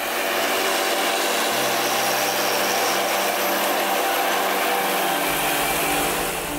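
Tractor with a disc mower cutting grass as it passes, giving a steady whirring noise with a low hum under it.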